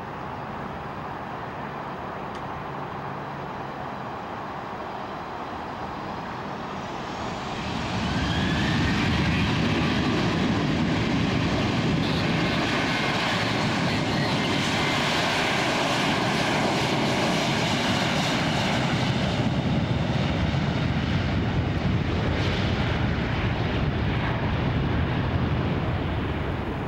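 Boeing 737-800 jet airliner's twin CFM56 turbofans spooling up to takeoff thrust, a rising whine about seven seconds in, then a steady loud roar through the takeoff roll as the jet accelerates and rotates.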